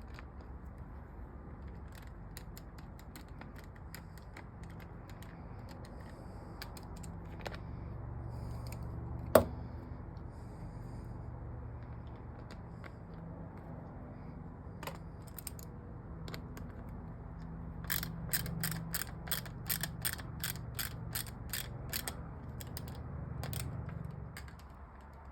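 Small hand ratchet clicking as screws are driven into the plastic handguard, in short bursts, then a steady run of about three clicks a second near the end. One sharp knock, the loudest sound, comes about nine seconds in.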